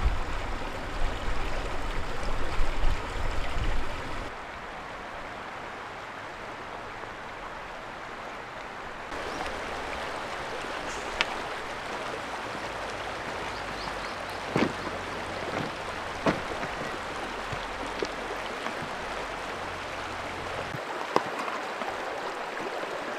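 Shallow river running over a pebble bed: a steady rushing, trickling water noise. The first few seconds carry a stronger low rumble, and a few sharp clicks and knocks come later.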